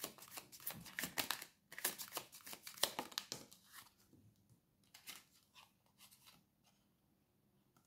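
Tarot cards being shuffled by hand: a quick run of soft, crisp card flicks and slaps for about three and a half seconds, then a few scattered taps.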